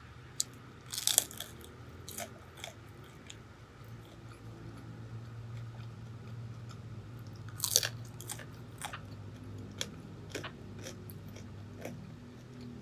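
Close-miked biting and crunching into a crisp pan-fried mandu dumpling. There is a loud crunch about a second in and another near eight seconds, with softer chewing crackles between.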